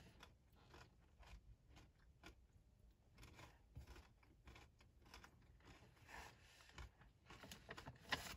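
Faint, close chewing of a thin, crisp pretzel cracker (pumpkin spice pretzel slims), with small irregular crunches that grow a little stronger about halfway through.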